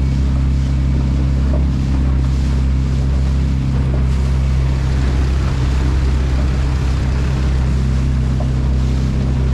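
Dinghy outboard motor running at a steady speed, with a constant low hum, under-laid by rushing water and wind noise.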